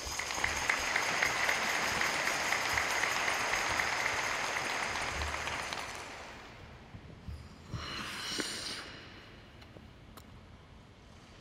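Audience applauding, which fades out after about six seconds; a short hiss follows about eight seconds in.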